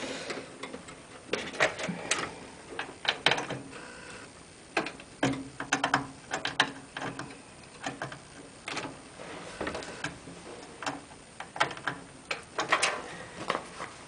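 Irregular light clicks and taps of small cable connectors and leads being handled and pushed onto motherboard header pins inside a computer case.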